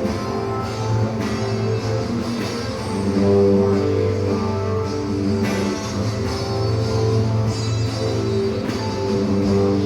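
Instrumental break of a rock song, with guitar chords and a drum kit playing and no singing.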